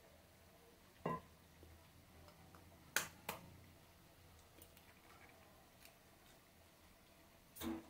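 Eggshell tapped sharply twice against a metal fork to crack it, a third of a second apart, about three seconds in. Lighter clinks and clicks of the fork and a stainless steel bowl come before and after, with a duller knock near the end.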